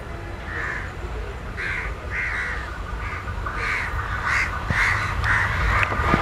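Crows cawing again and again, about two calls a second, over the low rumble of an approaching WDM3A diesel locomotive that grows louder toward the end.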